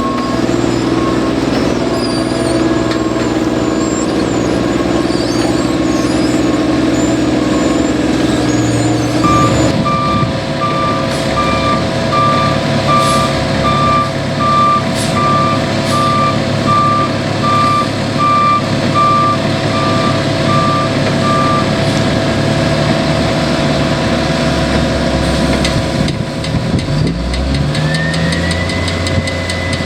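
Diesel construction vehicle running on an asphalt paving job with its reversing alarm beeping steadily. The beeping gets much louder about nine seconds in and stops a little past the two-thirds mark; near the end the engine revs up, its pitch rising and then holding steady.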